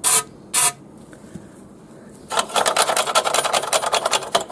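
Two short sprays from an aerosol lubricant can with a straw, putting lube on the rust-prone chain-adjuster bolts of a motorcycle's rear axle. From about halfway, two seconds of fast, rhythmic rasping at the rear axle.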